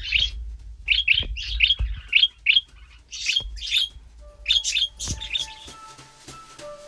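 Pet parakeets (budgerigars) chirping in quick runs of short, high calls. About five seconds in the chirps give way to background music with steady notes and light percussion.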